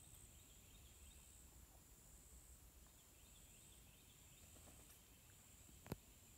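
Faint swamp ambience: a high insect buzz that comes in long pulses, with faint scattered chirps, and one sharp click near the end.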